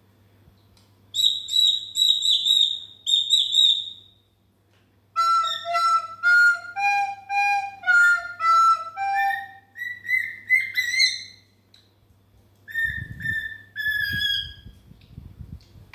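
Cockatiel whistling in bursts of high, repeated chirping notes, and in the middle a soprano recorder playing a short stepwise tune. The bird's notes come near the start and again near the end.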